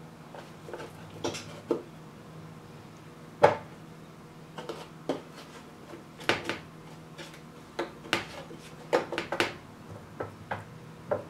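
Irregular knocks and clatters of a baking pan being handled as turkey wing pieces are set into it, with the sharpest knock about three and a half seconds in.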